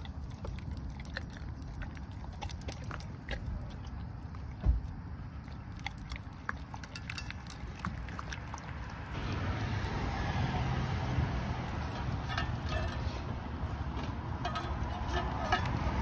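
Dog eating raw ground meat from a stainless steel bowl: a run of wet chewing and licking clicks, with one louder knock about five seconds in. Under it runs a low rumble that gets louder about nine seconds in.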